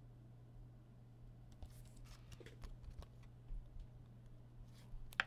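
Trading cards being handled and flipped: faint scattered clicks and rustles over a steady low hum, with one sharp click near the end.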